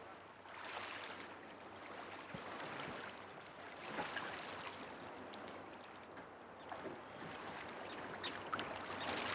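Shallow seawater lapping and swishing softly around hands and legs as a sea bass is held in the water and released, rising and falling in gentle swells.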